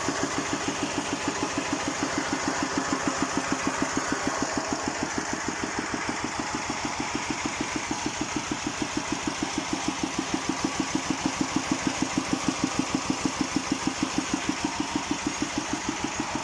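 Engine of an 11-horsepower Thale Thong walking tractor idling with an even, regular beat; it idles very steadily.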